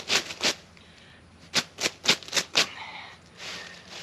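Peanut plants rustling as a hand sweeps through the leaves in quick strokes, about three a second: a few at the start, a pause, then four more in the middle and a softer swish near the end.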